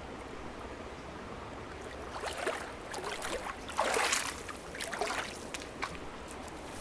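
Wading through shallow creek water: a few splashing, sloshing steps, loudest about four seconds in, over a steady wash of flowing water.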